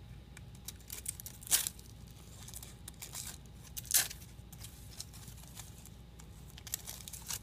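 A fabric battery strap being threaded and pulled through the slots of a quadcopter frame plate: rustling and scraping handling noise, with two short louder rasps about one and a half and four seconds in and a few small ticks near the end.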